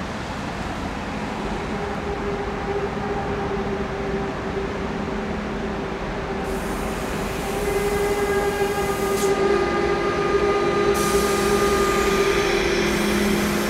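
ICE T electric multiple unit rolling slowly through a station, with a steady whine of several held tones over the running noise. It grows louder as the train draws near, and the main tone drops slightly in pitch about two-thirds of the way through as the train slows.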